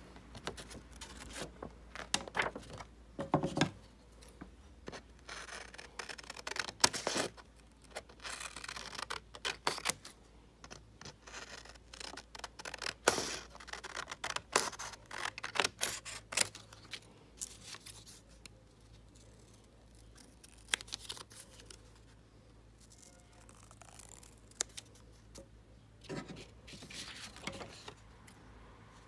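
Scissors snipping through thin printed card, short crisp cuts with the rustle of the sheet being turned in the hand. The cuts come thick and fast through the first half, thin out, then pick up again briefly near the end.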